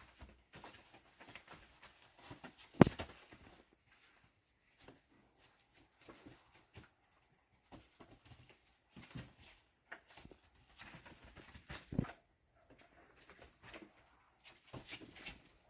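Himalayan-Ragdoll kittens playing: soft scuffling and pattering with scattered light clicks, a sharp knock about three seconds in and a smaller one about twelve seconds in.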